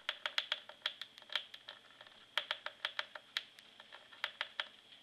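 Cockatiel pecking and nibbling at the keys of a computer keyboard: a run of sharp, irregular plastic clicks, with a short pause about two seconds in.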